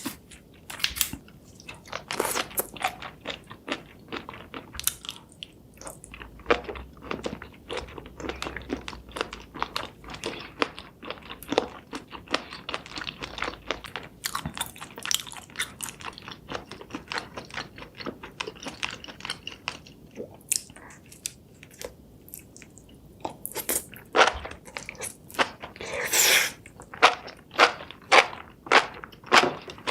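A person biting and chewing food close to the microphone, with crisp crunching and wet chewing strokes throughout. Near the end the chewing settles into a steady rhythm of about two chews a second.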